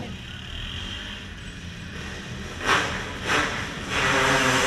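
500cc outlaw kart engines running on a dirt track, heard at a distance, with two short louder blips a few seconds in. Near the end a steadier engine note grows louder as the karts come round toward the turn.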